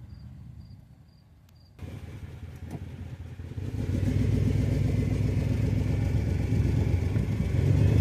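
A motor vehicle's engine running. It comes in abruptly about two seconds in, grows louder, and runs as a steady low drone from about four seconds.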